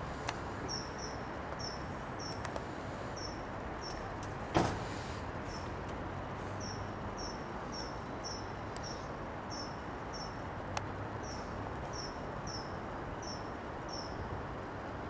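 Steady outdoor background noise with a low rumble, over which a short, high chirp repeats two or three times a second. A single sharp knock about four and a half seconds in is the loudest sound.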